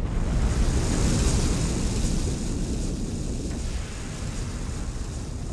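Sound-design rumble for solar flare footage: a deep rumble with a hiss on top, swelling in the first second and then slowly fading.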